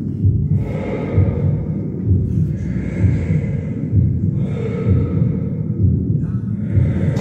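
Museum sound installation playing breathing: slow, regular airy inhale-and-exhale swells about every two seconds, over a steady low rumble with repeated low thumps.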